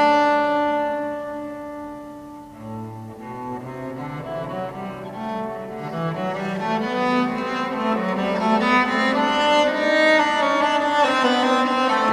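Solo cello played with the bow in a reverberant church. A long held note dies away over the first two seconds or so. After a short low note, a melodic line of bowed notes climbs and grows louder.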